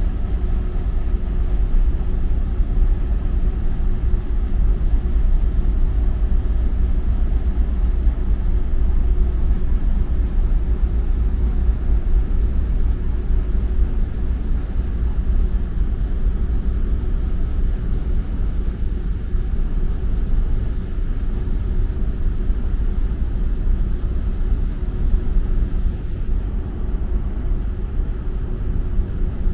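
Steady low rumble and hum of the car ferry MV Armorique's engines and machinery as the ship comes into port.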